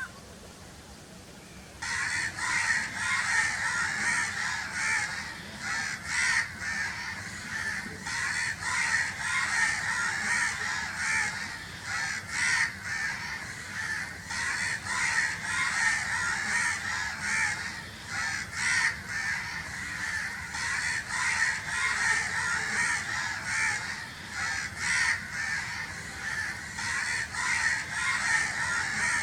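A flock of crows cawing together in a dense, unbroken chorus of overlapping calls, starting abruptly about two seconds in.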